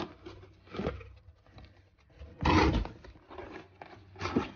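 Cardboard box being handled by hand: short knocks and scrapes of the flaps, the loudest a brief scrape about two and a half seconds in.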